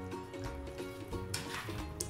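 Background music with a melody over a bass line. About a second and a half in comes a short scraping noise from a spatula stirring cream into the chicken in a frying pan.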